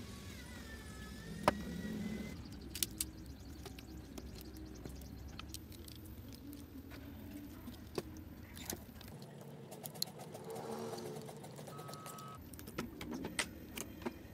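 Small clicks, taps and light metallic rattles of a precision screwdriver and camera parts being handled during disassembly of a camera body, with a few sharper clicks, the loudest about a second and a half in.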